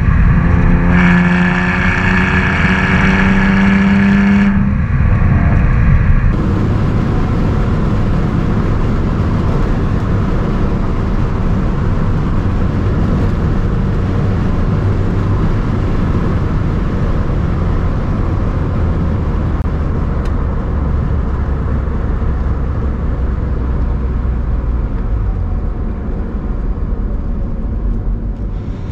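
BMW inline-six engine holding a steady, pitched note under power for the first few seconds. About five seconds in the note drops away, and a loud, even rumble of engine and road noise follows as the car drives on.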